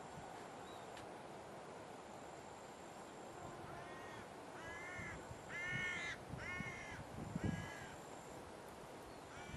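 A crow cawing four times, about a second apart, starting about four seconds in, over a steady outdoor hiss; a brief low thump follows soon after.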